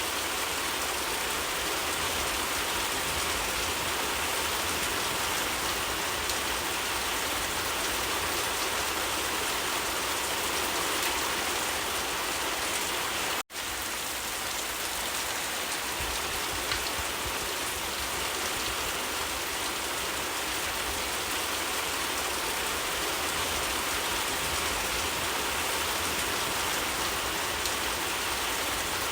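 Steady gentle rain falling on leaves, an even hiss with scattered drop ticks. There is a split-second gap of silence about halfway through.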